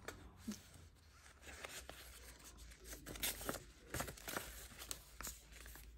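Faint, scattered rustles and soft clicks of Australian polymer banknotes being handled and recounted by hand.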